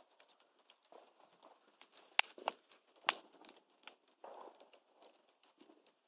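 Fire crackling in a stainless steel washing machine drum fire pit: irregular sharp pops and snaps, the loudest a little past two seconds in and again around three seconds.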